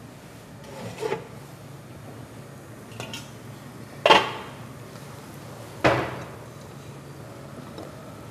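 Kitchenware clattering on a counter: a few light clinks, then two sharp knocks of a dish or pot being set down about two seconds apart, each ringing briefly.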